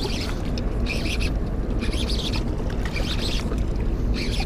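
Steady wind rumble on a GoPro's microphone, with short hissing bursts coming about once a second.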